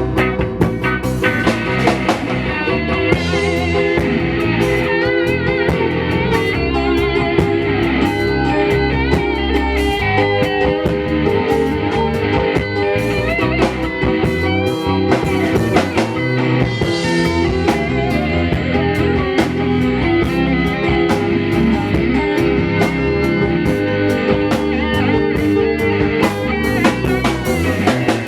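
A live band playing: electric guitar with bending lead notes over bass and drum kit, loud and continuous.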